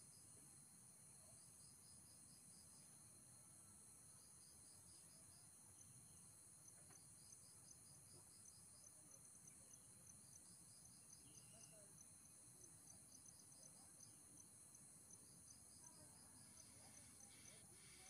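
Near silence with faint insects chirping: short trains of rapid high chirps repeating every second or so, over an even faint ticking and a steady high hiss. A few soft rustles near the end.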